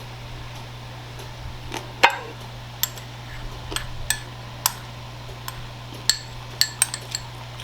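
Eating utensils clinking against a plate in separate scattered clinks, the loudest about two seconds in, over a steady low hum.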